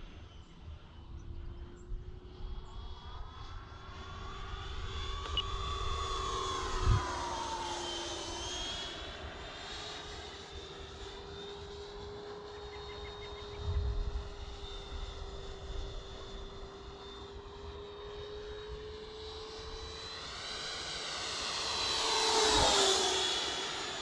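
Freewing Avanti S 80mm electric ducted-fan jet whining at speed in flight. Its pitch falls each time it passes, twice, with the second pass the loudest, near the end.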